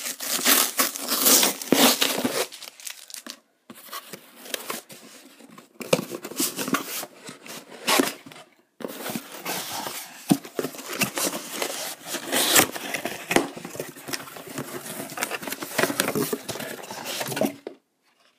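Packaging being torn open and rustled: crinkling and tearing in irregular bursts with two short pauses, stopping shortly before the end.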